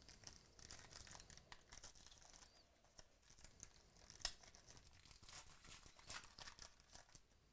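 Quiet tearing and crinkling of a Panini Chronicles baseball card pack's foil wrapper as it is opened by hand: a dense run of small crackles, with one sharper crack about four seconds in.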